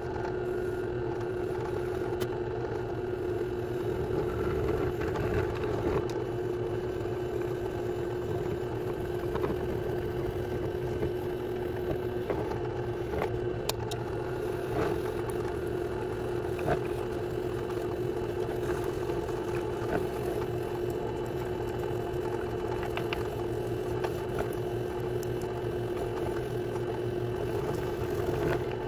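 Benchtop drill press running with a small end mill cutting a slot in the cover of an ABS brake control module as it is guided by hand along the cutter: a steady motor hum, with scattered light ticks of the cutter chipping the cover.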